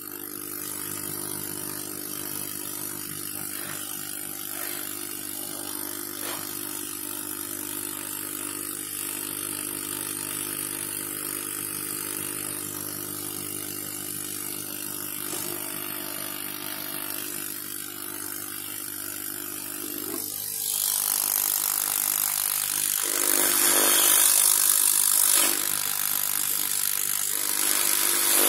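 Hot-air rework gun's blower running steadily. About 20 seconds in, a louder rushing hiss of air comes in as the nozzle is brought over the circuit board to solder a zero-ohm resistor.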